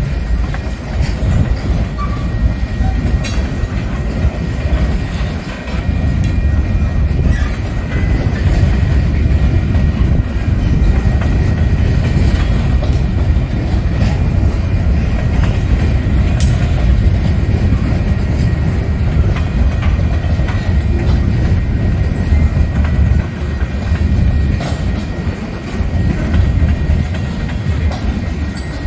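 Freight train of tank cars and covered hopper cars rolling past close by: a steady rumble of steel wheels on rail, with occasional sharp clacks.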